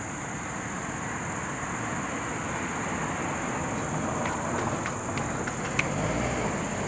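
Steady road and wind noise of a moving car, heard from inside the cabin, with a thin steady high-pitched whine over it and a few faint ticks partway through.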